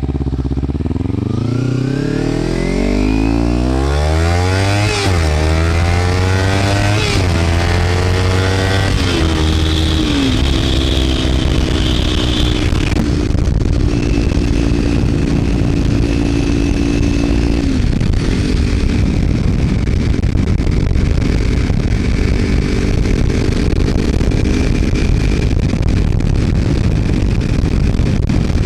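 Kawasaki Ninja 300's parallel-twin engine through a Screaming Demon slip-on exhaust with its baffle removed, accelerating hard. The revs climb and drop back at upshifts about five, seven and nine seconds in, then the engine holds a steady note at cruising speed.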